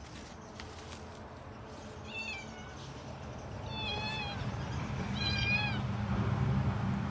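A domestic cat meowing three times, short high calls a second or two apart. A low steady hum grows louder behind it in the second half.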